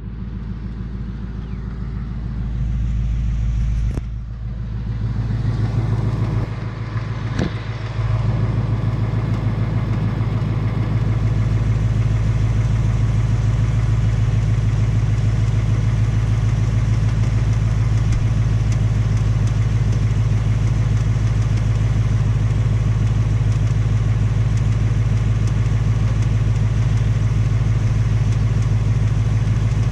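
2018 Mustang GT's third-generation 5.0 L Coyote V8 idling steadily with a persistent tapping/knocking tick. The owner takes the tick for piston slap like that found on the first engine. The sound grows louder over the first several seconds, with a couple of brief knocks, then runs evenly.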